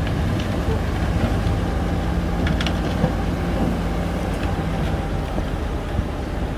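Shantui bulldozer's diesel engine running steadily under work, with a couple of short high clicks about two and a half seconds in.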